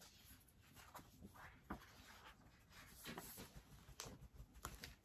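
Faint, irregular rustling and light taps of paper and card being handled.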